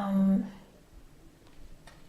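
A woman's voice finishes a word in the first half-second, followed by quiet room tone. A faint click comes near the end.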